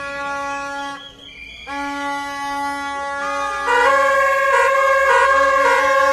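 Horns blowing: several long, steady horn tones, cut briefly about a second in, then from about four seconds a louder two-tone horn alternating high and low, roughly one and a half cycles a second.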